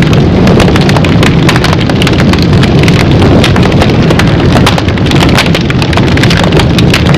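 Loud, dense crackling over a deep rumble: a hellfire sound effect of roaring flames.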